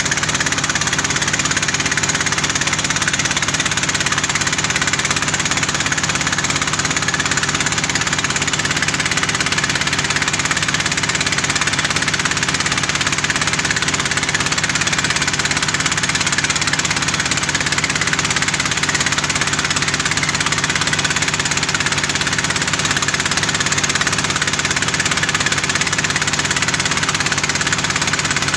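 Small engine powering a portable water-well drilling rig, running steadily at a constant speed.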